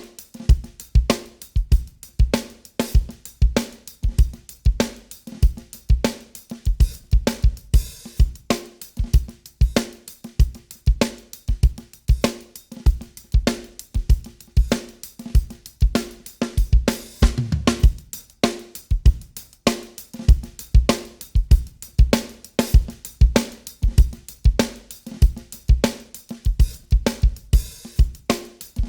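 Recorded drum kit groove playing back (kick, snare, hi-hat and cymbals), run through a TK Audio Transformer saturation unit with its second, saturation stage engaged, adding even harmonics and a slightly crunchier, more aggressive edge. A busier fill comes about two thirds of the way through.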